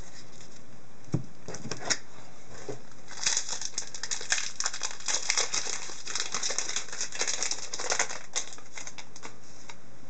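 Plastic trading-card pack wrapper crinkling as a new pack is torn open and handled, a dense run of crackling from about three seconds in until past eight seconds, after a couple of light clicks.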